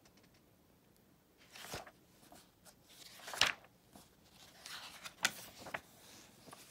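Magazine pages being turned and handled: several short swishes and rustles of paper, the loudest about three and a half seconds in, after a quiet first second and a half.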